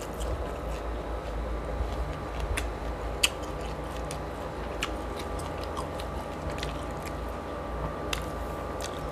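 A person chewing food close to the microphone, with scattered small clicks and smacks of the mouth and fingers. A steady low hum runs underneath.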